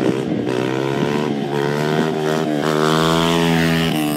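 Dirt bike engine revving hard as it passes, its pitch rising and falling with two brief breaks, loudest near the end.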